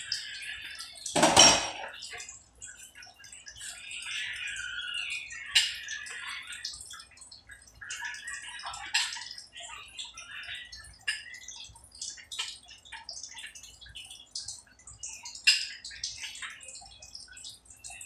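Irregular clicking, tapping and light scraping of a screwdriver on a water-pump pressure switch as it is handled and worked on. One louder knock comes a little over a second in.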